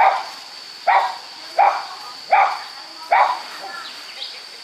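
A dog barking five times, evenly spaced a little under a second apart, over a steady high insect drone.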